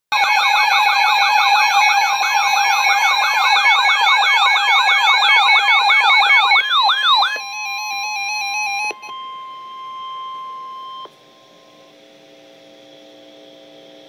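Weather alert radio's electronic alarm: a fast warbling siren, about four sweeps a second, that slows and stops after about seven seconds. A steady beep near 1 kHz follows and cuts off suddenly about eleven seconds in, leaving a faint steady hum, which marks the start of a severe thunderstorm warning broadcast.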